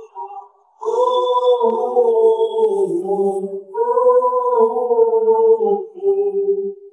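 Isolated rock lead vocal with the band removed: a male voice singing long held notes in three phrases, with a short break just before the first and the last note fading out near the end.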